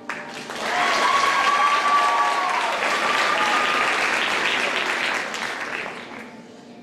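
Audience applauding and cheering, with a couple of long, held whoops over the clapping. It starts suddenly and fades away near the end.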